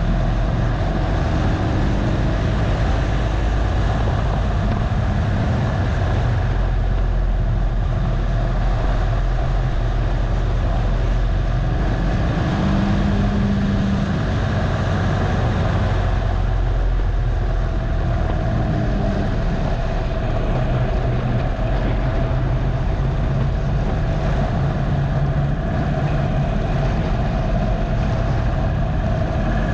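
2015 Harley-Davidson Dyna Low Rider's Twin Cam 103 V-twin running at track speed. The engine note rises and falls as the rider works the throttle through the corners, with steady wind noise on the bike-mounted microphone.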